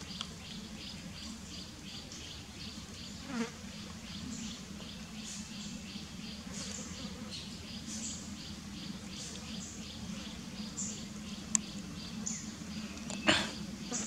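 Insects buzzing steadily, with a regular train of short high chirps a few times a second. A brief falling squeak comes about three seconds in, and a short sharp noise, the loudest sound, near the end.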